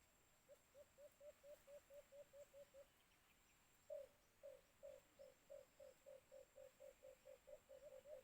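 White-eared brown dove calling: a rapid series of low, evenly spaced hoots, about four a second, in two runs with a pause of about a second between them.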